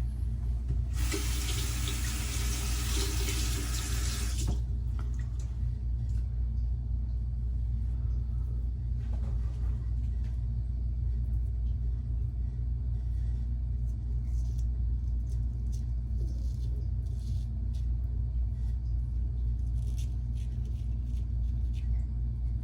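Water running from a tap into a sink for about three and a half seconds, starting about a second in, over a steady low rumble.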